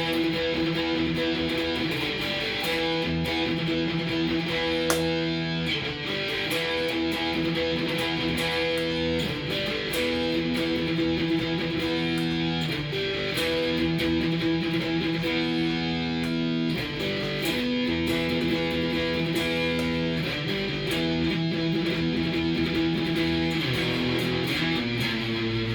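Korean-made 1999 Cort S series electric guitar played through a Fender amp, sounding held chords and notes that change every second or two.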